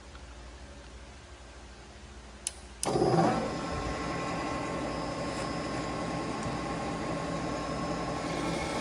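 Metal lathe switched on: a sharp click about two and a half seconds in, then the motor and spindle start up suddenly and run on steadily with a mechanical hum and whine.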